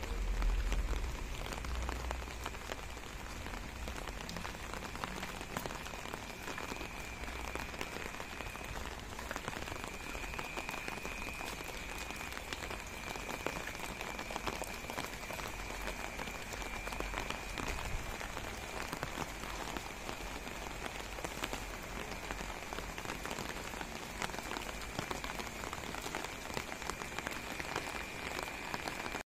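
Light rain falling steadily on a wet lane, heard as an even hiss of many small drop impacts. A faint steady high tone joins it a few seconds in.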